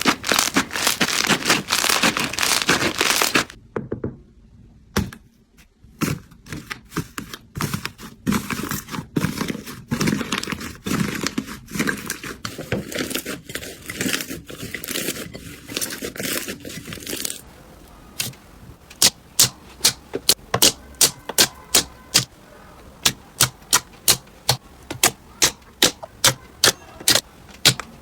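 Slime being squeezed and worked for ASMR: dense crunchy crackling, then irregular crackles and pops, and from about two-thirds of the way through a regular series of sharp clicks, about two a second.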